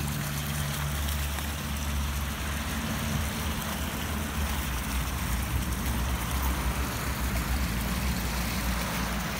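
Water from a tiered metal fountain pouring out of bowl spouts and splashing into a stone basin, a steady splashing with a low rumble underneath.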